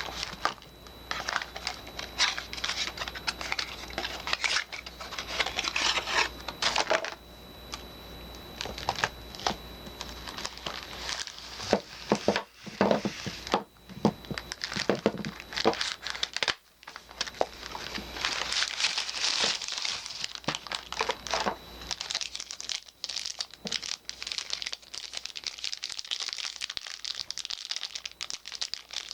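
Soap packaging wrappers crinkling and tearing as bars of soap are unwrapped by hand, a dense run of crackles and sharp rustles with a couple of brief pauses.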